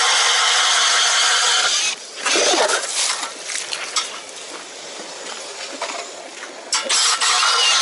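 Milwaukee Fuel cordless drill spinning an ice auger into the ice, its motor running at a steady pitch. It stops about two seconds in, giving way to quieter scraping and knocking of the auger in the ice. The drill starts up again about seven seconds in.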